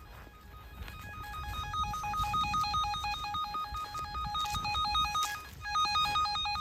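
Handheld underground wire locator receiver sounding a fast two-tone electronic warble as it picks up the transmitter's signal on a buried electrical cable. The tone is faint at first, grows louder from about a second in, and briefly dips near the end.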